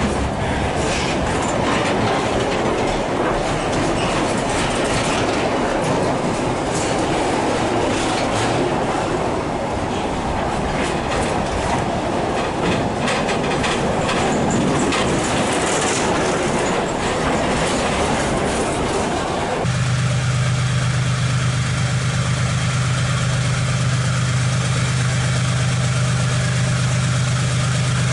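Freight train of container flatcars rolling past close by, wheels clicking steadily over the rail joints. About two-thirds of the way through this cuts off abruptly and gives way to the steady low drone of a diesel freight locomotive approaching in the distance.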